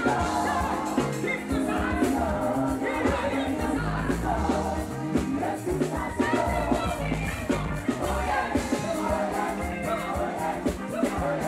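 Live Ghanaian gospel song: a woman singing lead into a microphone over a band with drums, bass, guitar and keyboard, on a steady beat.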